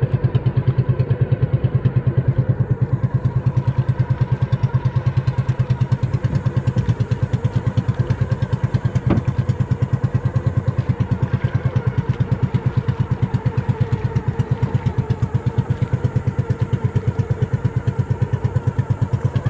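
A small boat's engine running steadily under way, with an even, rapid pulse. One sharp click sounds about nine seconds in.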